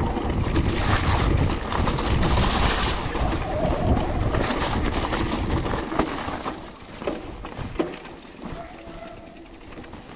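Mountain bike ridden fast down a wet, muddy trail: tyre noise over mud and stones, rattling from the bike, and wind buffeting the camera microphone. It gets quieter about two-thirds of the way through.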